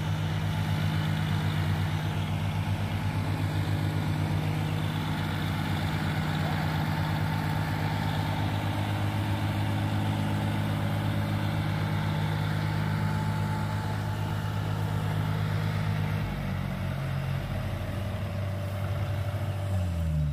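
Diesel engines of a Kubota DC-68G crawler combine harvester and a John Deere 4WD tractor running steadily under load as the harvester tows the mud-stuck tractor and its loaded trolley. The engine note shifts about sixteen seconds in and falls near the end.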